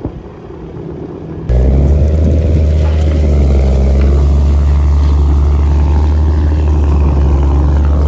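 Tractor pulling a reversible plough through the soil: a loud, steady low mechanical rumble that starts abruptly about a second and a half in, after a quieter, windy-sounding stretch.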